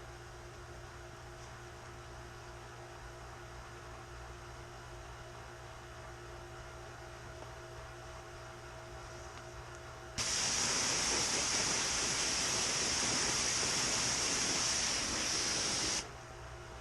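A steady low hum with a few steady tones, then about ten seconds in a loud pressurised spray hiss starts abruptly, runs evenly for about six seconds and cuts off suddenly.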